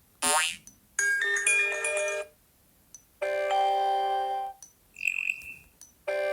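Sony Xperia phone speaker playing short notification-tone previews one after another: a brief plucked-sounding note, a chiming jingle of several notes, a held chord, a single high beep, and another chord starting near the end. Each cuts off as the next tone is picked.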